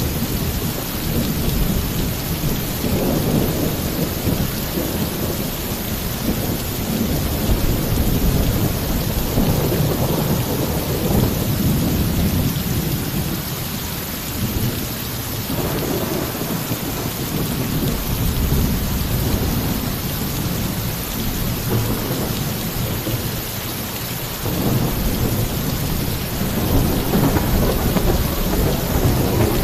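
Heavy, steady rain pouring onto a roof with thunder rumbling throughout, the deep rumble swelling several times.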